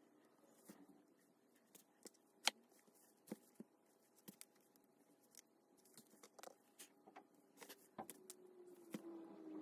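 Faint handling sounds of hand-stitching: scattered soft clicks and ticks as a needle and thread are worked through leather and a raccoon-fur tail, with one sharper click about two and a half seconds in, over a faint steady hum.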